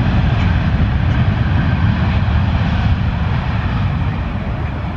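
Jet airliner engines running at the airport, a loud steady rushing roar with a heavy low rumble that eases slightly toward the end.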